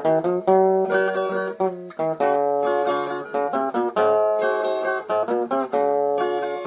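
Instrumental break of a romantic sertanejo-style song: a plucked string instrument picking a quick melody of short notes over chords, with no singing.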